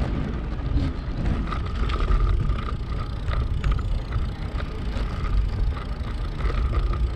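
Wind and road noise while riding a road bike: a steady low rumble on the action camera's microphone, with scattered light clicks and rattles.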